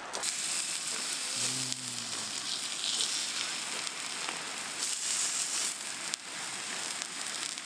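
Pork belly (samgyeopsal) sizzling steadily on a hot griddle pan as raw strips are laid on it and moved with chopsticks.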